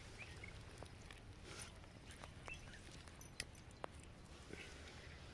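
Quiet outdoor background with a few faint short chirps and two sharp clicks about three and a half seconds in.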